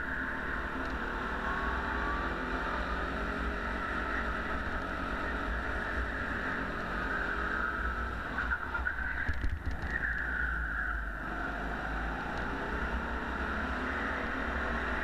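Go-kart engine running at speed, its revs drifting down and back up through the corners. A brief rough stretch with a few sharp knocks about nine seconds in.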